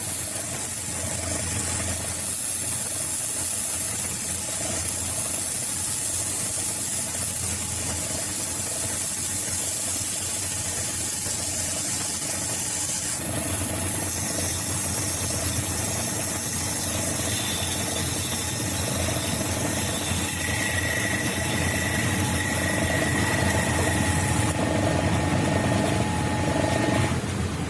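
Homemade lathe, driven by a 0.75 kW three-phase electric motor, running steadily while the cutting tool scrapes a soft nylon workpiece. The cutting noise changes about halfway through, and a thin high tone comes in for a few seconds near the end.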